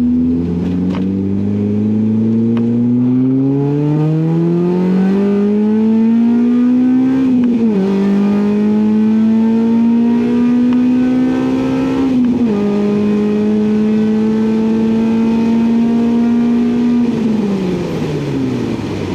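Honda K20A2 2.0-litre four-cylinder engine in an Acura Integra accelerating hard up a freeway on-ramp, heard from inside the car: the engine note climbs, drops sharply at two upshifts, about eight and twelve seconds in, then holds steady at cruise. Near the end the note falls away as the driver comes off the throttle.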